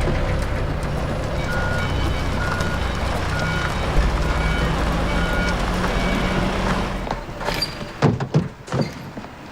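A large vehicle's engine running, with about six evenly spaced reversing beeps, typical of a truck backing up. Near the end the engine drops away and a few separate knocks and clatter follow.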